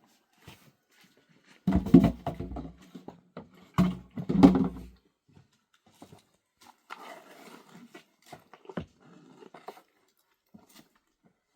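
An animal calling twice, loud and low, about two seconds in and again about four seconds in, followed by faint rustling and ticks.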